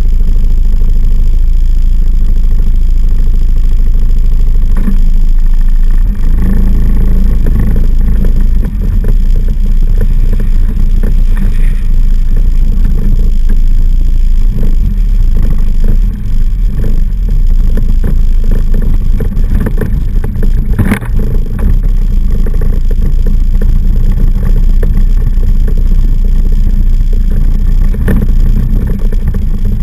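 ATV engine running under way on a trail ride: a loud, steady low rumble with scattered short knocks and jolts.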